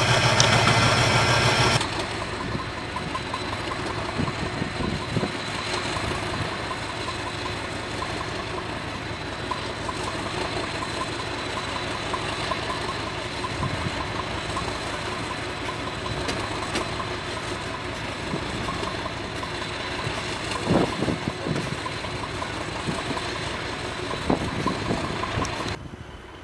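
Class 50 diesel locomotive's English Electric 16-cylinder engine idling just after a cold start in deep frost. It is louder for about the first two seconds, then drops suddenly to a steady idle, and falls away again near the end.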